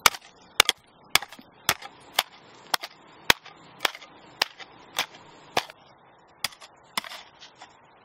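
A rapid run of sharp clicks, about two a second, that stops about seven seconds in, over faint background hiss.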